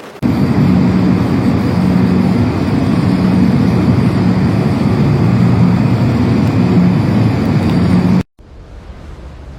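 A vehicle engine running steadily with a rough low rumble; the sound cuts off abruptly about eight seconds in.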